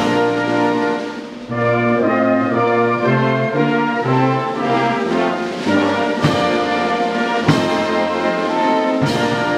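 Brass band playing: sustained brass chords over a bass line that steps from note to note, with a few sharp drum and cymbal hits in the second half.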